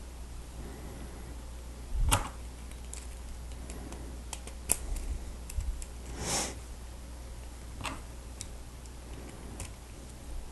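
Plastic Lego Technic pieces being handled and pressed together: scattered small clicks, with a louder clack about two seconds in and a short swish around six seconds in.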